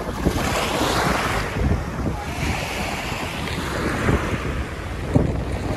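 Small waves washing up onto a shell beach, surging in twice, under a steady rumble of wind buffeting the microphone.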